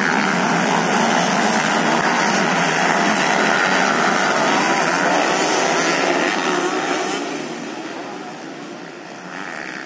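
A large pack of motocross bikes racing away together, their engines blending into one loud dense din. About seven seconds in, the din fades as the pack moves off over the hill.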